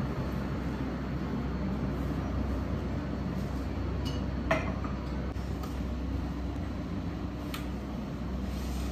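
Café room tone with a steady low hum, and a few light clinks of ceramic cups and saucers being set down on the counter, the loudest about four and a half seconds in with a brief ring.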